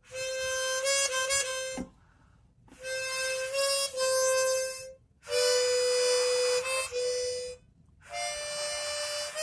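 10-hole chromatic harmonica playing four held notes in separate breaths, with short gaps between. Within each note the pitch steps up a little and back as the slide button is pressed and released.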